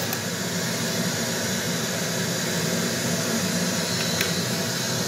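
Steady hiss of radio static from a Cardio DY-2727 car stereo's speaker, its tuner off-station now that no cassette is playing. A faint click comes about four seconds in.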